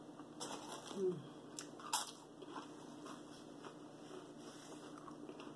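Faint close-up mouth sounds of a person chewing food, with a few small clicks, the strongest about two seconds in, and a brief hum that falls in pitch about a second in.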